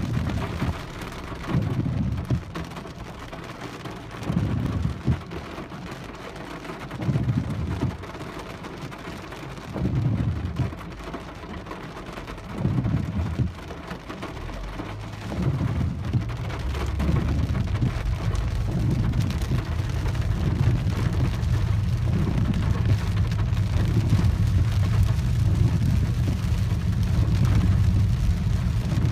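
Heavy rain falling on a Peugeot 408's windshield and roof, heard from inside the cabin, with a short low swell about every three seconds in the first half. About halfway through, a steady low rumble of tyres on the wet road rises as the car gets moving.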